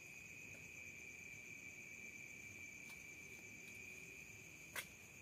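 Steady high-pitched chorus of night insects, a continuous trill, with a single sharp click near the end.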